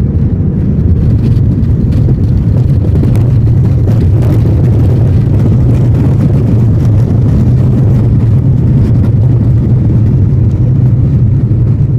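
Loud, steady rumble of an Airbus A320's engines and airframe heard inside the cabin during landing, with light rattles of the cabin fittings.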